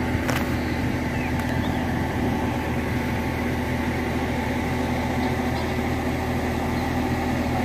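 SANY truck crane's diesel engine running steadily under load while hoisting, a constant even drone. A brief click about a third of a second in.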